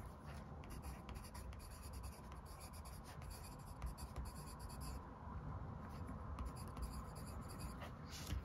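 Coloured pencil scratching faintly on paper as a small swatch is shaded and a label is written beside it, with a short pause about five seconds in.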